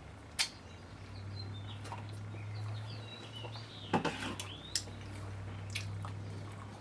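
Wet mouth clicks and smacks from eating and licking sticky fingers, a handful of sharp clicks with a cluster about four seconds in, over a low steady hum.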